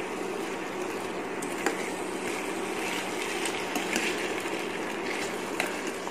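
Diced potatoes sizzling in hot ghee in a steel kadhai while a steel spoon stirs them, with a few sharp clicks of the spoon against the pan. A faint steady low hum sits under it.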